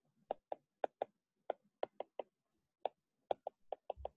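A stylus tapping and clicking on a tablet's writing surface while handwriting: about fifteen short, faint, irregular taps, roughly four a second.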